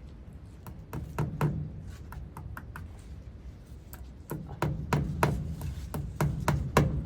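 A series of irregular sharp knocks and taps, a few a second, with a low rumble joining about four seconds in and growing louder toward the end.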